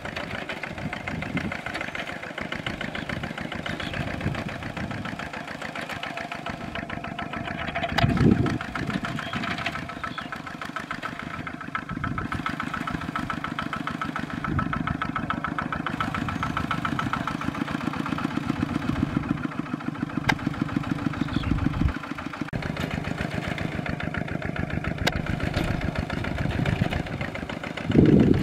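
Kubota RT140 single-cylinder diesel engine on a two-wheel walking tractor, running steadily under load as it pulls a plow through a rice paddy, with a rapid, even chugging. There is a brief louder surge about eight seconds in.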